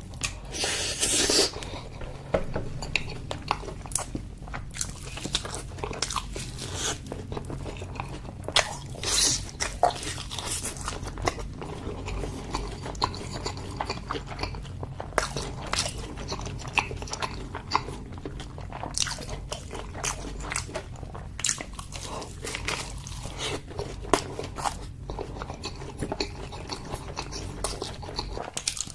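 Close-miked eating: repeated bites and chewing with irregular wet smacks and occasional crunches.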